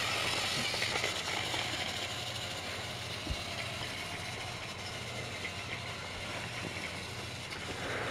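Battery-powered Trackmaster motorized toy train engines whirring steadily as they run along plastic track, with a soft knock about three seconds in.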